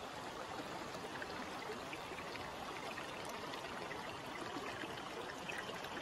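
Mountain stream flowing: a steady, even rush of water.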